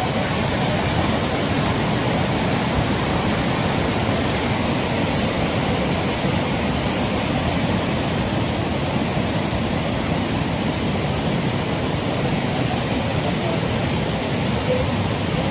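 Swollen river in flash flood: fast water rushing in a steady, loud, unbroken noise.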